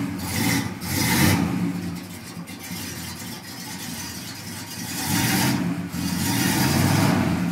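Oldsmobile 350 Rocket V8 running through Flowmaster mufflers just after starting, its rumble swelling louder twice as it is revved. The owner says it has a leaking head gasket on the right side and needs a rebuild.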